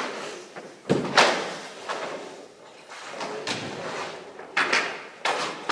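Sharp clacks and scrapes of hockey sticks, pucks and skates on the rink surface during a goaltending drill: about five knocks with short echoing tails, the loudest about a second in.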